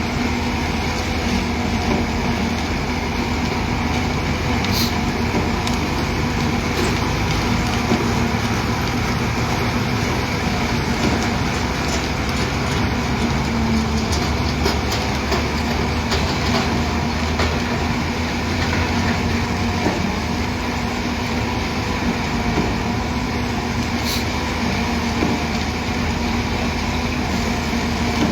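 Heavy diesel construction machinery running steadily at a constant speed while concrete is poured for a bored pile, with a couple of brief sharp clicks.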